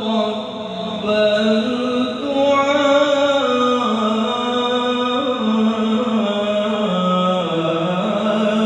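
A man reciting the Qur'an in the melodic tilawah style, drawing out one long, ornamented vowel that moves up and down in small steps of pitch.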